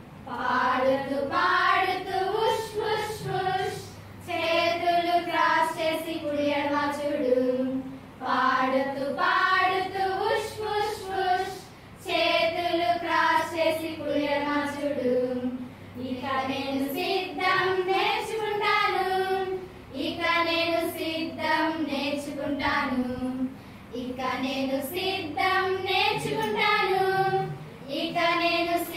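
A group of women singing a simple relaxation song together, in phrases of about four seconds with short pauses for breath between them.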